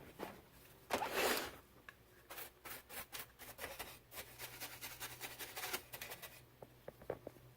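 Small handling sounds: a short scraping rub about a second in, then a run of quick, irregular clicks and ticks for about four seconds, over a steady low hum.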